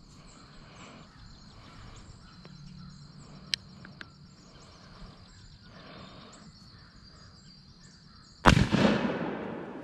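A muzzleloader rifle fires once about eight and a half seconds in: a single loud shot that echoes and dies away over about a second.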